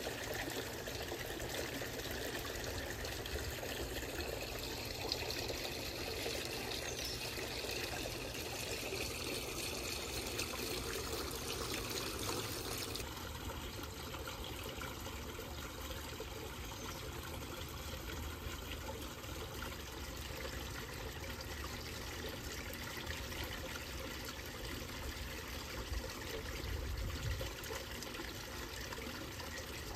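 Water trickling and pouring steadily into a garden fish pond, its sound shifting slightly about halfway through.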